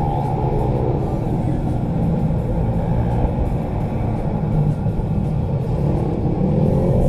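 Small mini-bike (pit bike) engines running hard under the onboard camera, sounding muffled; the revs drop off about half a second in and climb again near the end as the throttle is reopened.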